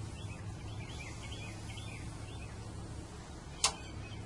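Small birds chirping over and over over a steady low background hum, with one sharp click about three and a half seconds in.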